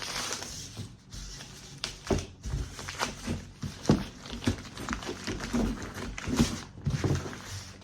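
Protective wrapping being pulled off a table leg: irregular rustling and crinkling with scattered light knocks and clatters as the leg is handled.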